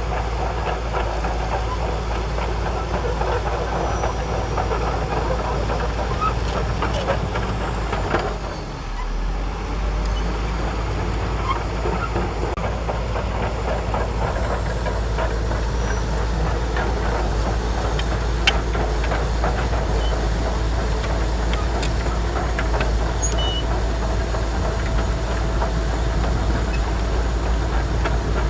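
Shantui DH17C2 crawler bulldozer working, its diesel engine running steadily with steel tracks clanking and rattling, dipping briefly about eight seconds in.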